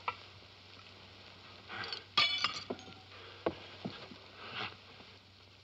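A small glass bottle dropped and breaking about two seconds in, a sharp ringing clink followed by a few lighter knocks.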